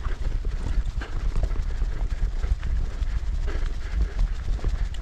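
YT Capra Core 3 MX mountain bike descending a rough trail: a steady deep rumble of tyres and wind on the microphone, with frequent irregular rattles and knocks from the bike.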